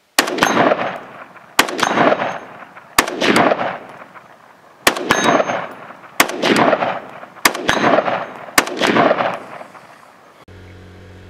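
Bullpup carbine fired in about seven groups of shots, several of them quick pairs. Each report is sharp, with a long echo rolling after it.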